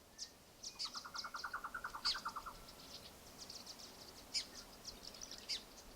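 Small birds calling: short high chirps scattered throughout, with a rapid trill of about a dozen evenly spaced notes, lower in pitch, from about one to two and a half seconds in.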